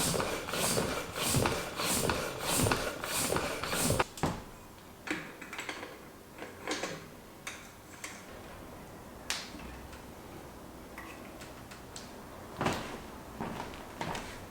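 Hand work on bicycle parts: a run of quick scraping strokes, about three a second, for roughly the first four seconds. Scattered light clicks and knocks follow.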